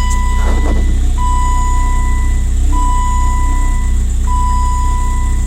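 BMW E30 M3's S14 four-cylinder engine idling steadily after a cold start, with a dashboard warning chime sounding a long, clear beep over and over, about one every one and a half seconds.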